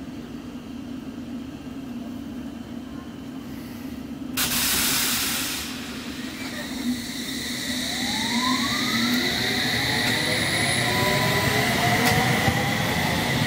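London Underground S7 Stock District line train, its equipment humming steadily at the platform. About four seconds in there is a loud burst of air hiss lasting a second or two. The train then moves off, its traction motors whining in several tones that rise in pitch as it gathers speed.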